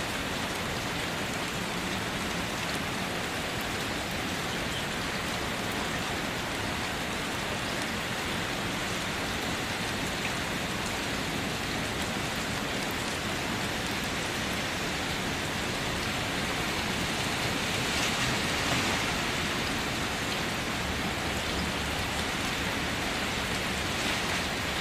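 Steady rainfall, an even continuous hiss of rain coming down, swelling slightly about eighteen seconds in.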